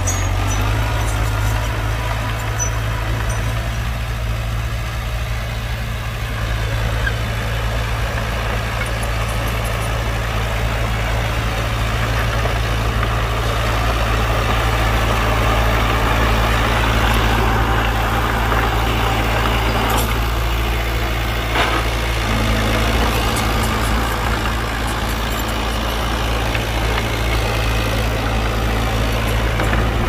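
Heavy diesel engine of earthmoving machinery running steadily at a low, even pitch, with a couple of brief clicks about twenty seconds in.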